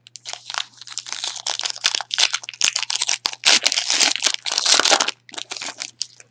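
Foil trading-card pack wrapper being torn open and crinkled by hand, a dense run of crackling that is loudest about two thirds of the way through.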